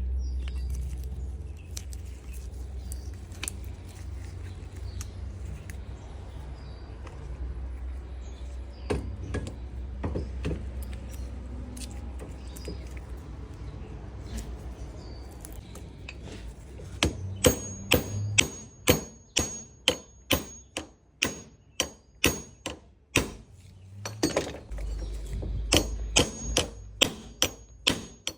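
Steel being struck with a hammer in a steady run of ringing metallic blows, about two a second, while a steering-shaft universal joint is worked on. The blows pause briefly and then resume. They follow a stretch of low hum and scattered small clicks.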